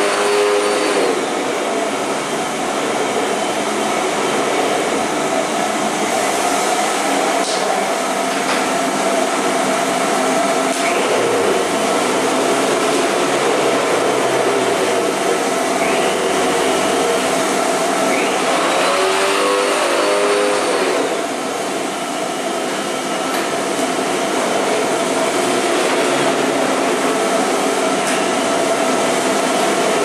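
Vacuum cleaner running steadily: a continuous whir with a constant hum. Its tone sweeps up and back down briefly, once at the start and again about two-thirds of the way through.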